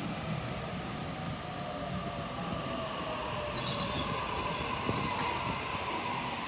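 A Sydney Trains Waratah double-deck electric train rolls into the platform, its carriages rumbling past over the rails. A steady electric whine from the running gear sits over the rumble.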